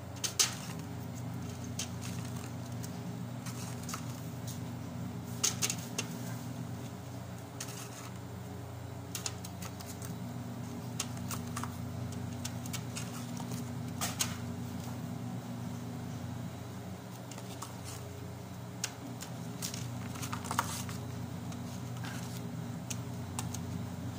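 Hands folding sambusa pastry wrappers and setting the pastries on a glass tray: scattered soft clicks and taps over a steady low hum.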